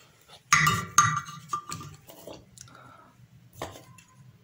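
Two sharp metallic clinks with a brief ringing, a soldering iron set down in its stand, followed by lighter clicks and rattles of small circuit boards being handled.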